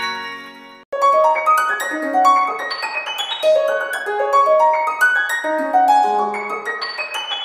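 HTC Sense 4 phone alarm tone: quick rising piano-like arpeggios, repeating roughly once a second. At the start, the sustained organ-like chord of the previous tone fades and cuts off just under a second in, before the arpeggios begin.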